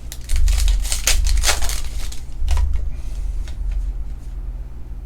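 Trading card pack wrapper being torn open and crinkled, with cards handled: a dense run of crackling for the first couple of seconds, then a few separate crackles and dull bumps.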